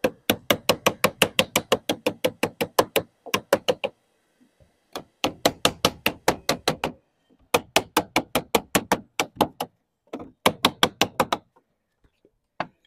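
A wooden lead dresser beating sheet lead in quick, even knocks of about seven a second. The knocks come in runs of one to three seconds with short pauses, and there is one last knock near the end. The lead flashing is being dressed round the corner of a dormer cheek.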